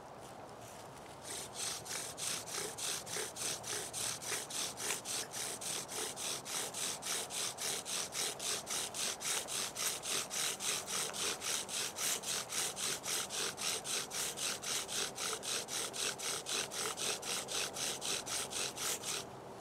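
Pine bow drill being worked: rapid, even back-and-forth strokes of the bow, with the spindle grinding in the hearth board, about four strokes a second. The strokes start about a second in and stop just before the end, as friction heat is built up for an ember.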